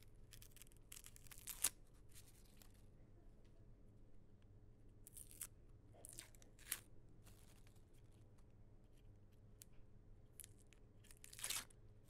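Onion skin being peeled, tearing off in short, separate bursts over faint quiet room tone; the longest tears come about a second and a half in and near the end.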